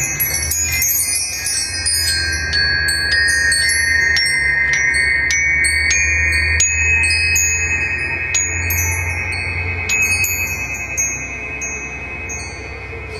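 A set of metal chimes played in a quick, irregular run of bright ringing notes over sustained ringing tones, with a low steady hum beneath; the strikes thin out near the end.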